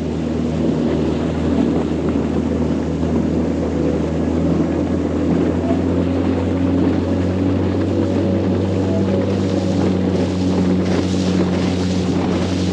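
Outboard motor on a small tender running at a steady cruising speed, its hum holding an even pitch, over water rushing past the hull and wind on the microphone. The hiss of spray and wind swells about ten seconds in.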